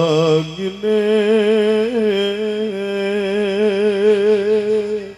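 A singer in Javanese traditional style holding long, wavering notes with wide vibrato. There are two held phrases with a brief break about half a second in, and the voice stops shortly before the end.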